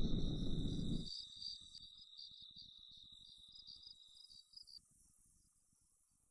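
A loud low rumble dies away about a second in, leaving crickets chirping faintly, which cut off just before the five-second mark.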